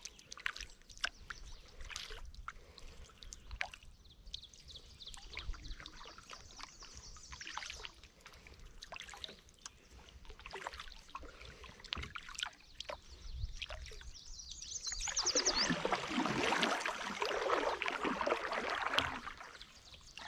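Kayak paddling: water dripping and trickling off the paddle blades with light clicks and knocks, then a louder, busier stretch of splashing about three-quarters of the way through.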